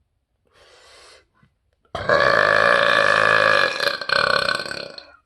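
A man's long, loud, deliberately forced burp of about three seconds, deep and pitched, with a brief break near the end as it trails off. A faint breathy sound comes before it.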